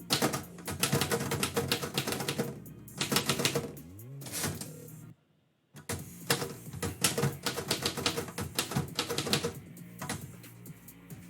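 Typewriter keys striking in quick, uneven runs of clacks as a poem is typed, over background music. The sound cuts out completely for about half a second midway.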